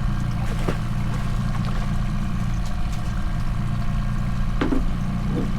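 Boat's outboard motor running steadily at trolling speed, a low even drone, with a couple of light knocks about a second in and near the end.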